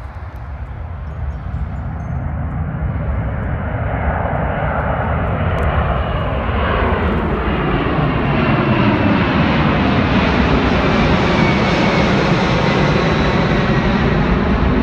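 Large jet airliner climbing out after takeoff at full thrust, its engine noise swelling steadily louder as it comes up toward and over the listener.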